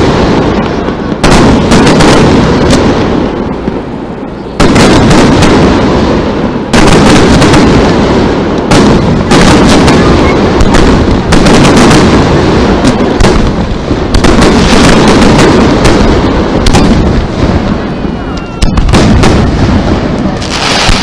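Fireworks display: aerial shells launching and bursting in a rapid, continuous barrage of loud bangs and booms, one burst running into the next.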